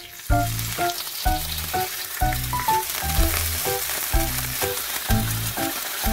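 Food sizzling as it fries in a hot pan, over background music with a steady beat.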